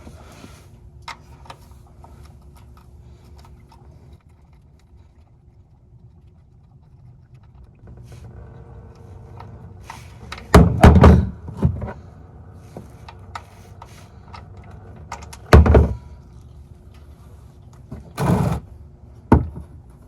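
Several loud thuds and knocks in the second half over a low steady background, from tool work under the car to get the oil drain plug off with a 15 mm wrench.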